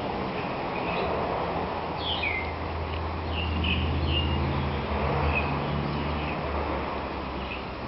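Small birds chirping in short, high calls scattered every second or so, over a steady low hum.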